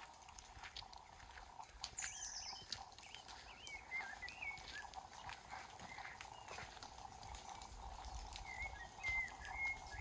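Songbirds singing in woodland: short, wavering whistled phrases scattered through, over a faint steady background and light scattered ticks and pattering.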